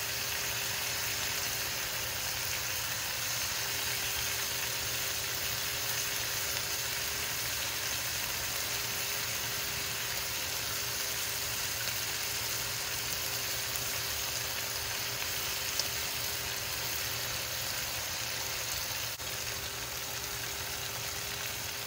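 Sliced beef frying in a pan, a steady sizzle.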